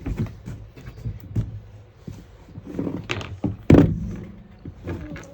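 Scattered knocks and thuds of work on a camper van's plywood subfloor, with one loud thud a little before four seconds in that leaves a brief low ring.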